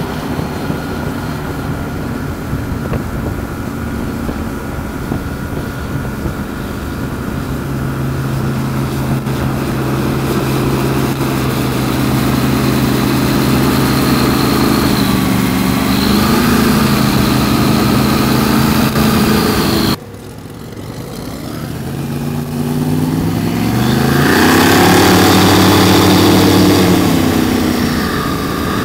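Airboat's 572 cubic inch big block Chevy V8 and counter-rotating propeller running at speed, the pitch dipping and climbing again. It cuts off abruptly about two-thirds in, then swells back up, rising and then falling in pitch as the boat goes by.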